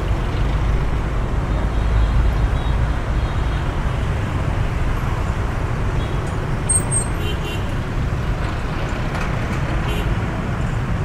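Rush-hour road traffic: a steady din of many motorbike engines, with a minibus and then a light truck passing close by. The low rumble is heaviest in the first couple of seconds.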